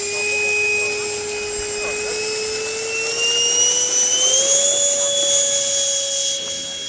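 90 mm electric ducted fan of a Fly Fly Hobbies F-100F Super Sabre RC jet whining at high throttle for the takeoff roll. Its pitch climbs and it grows louder about halfway through, then holds steady as the plane lifts off.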